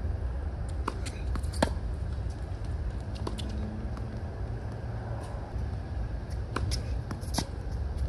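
Tennis ball pocking off rackets and bouncing on a hard court during a rally: a string of sharp, irregularly spaced pops, the loudest about one and a half seconds in, over a steady low rumble.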